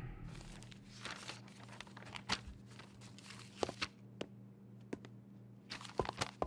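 Papers and newspapers rustling and being shuffled by hand on a desk, with scattered light knocks, and footsteps on a tiled floor near the end. A faint steady hum runs underneath.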